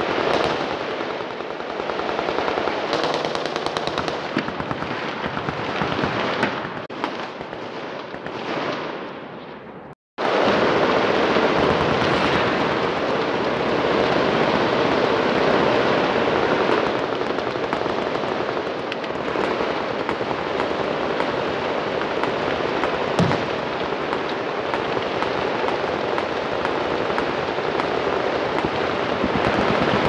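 Many machine guns firing at once: dense, continuous overlapping automatic fire. It cuts out abruptly about a third of the way in and resumes at once, and one sharper, louder bang stands out about two-thirds of the way through.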